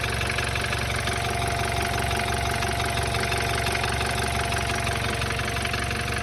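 BMW 528i engine idling steadily, with a rapid, even knocking under a steady whine. The owner is unsure whether the knock is a fault or a normal sound.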